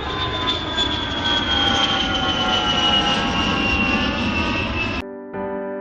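Jet aircraft passing, a loud engine roar with a high whine slowly falling in pitch, cut off abruptly about five seconds in. Piano music starts just after.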